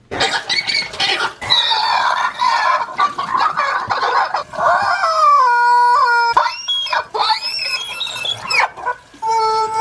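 Loud chicken-like squawking and clucking: a run of pitched cries that bend up and down, with one longer held squawk about halfway through.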